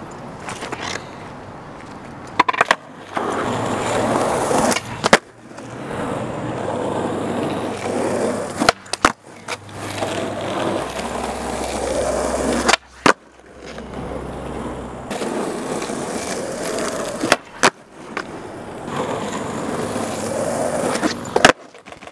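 Skateboard wheels rolling on asphalt, broken about five times by the sharp pop of the tail and the clack of the board landing as flat-ground tricks are done.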